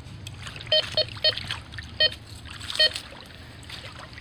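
Metal detector giving about five short beeps at one pitch as its coil passes over metal targets in a shallow streambed, over the steady trickle of the stream.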